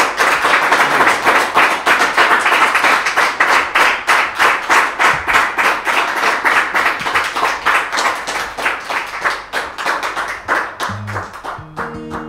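A small audience applauding the end of a song with a dense patter of clapping that thins out towards the end. Near the end a few acoustic guitar notes start.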